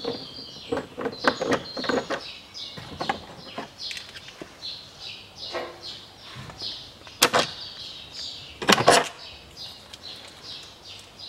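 Small clicks of a screwdriver turning out a Torx T30 screw from the door-pull recess of a car door trim panel, then two sharp, louder knocks about seven and nine seconds in. A bird chirps over and over in short, falling notes throughout.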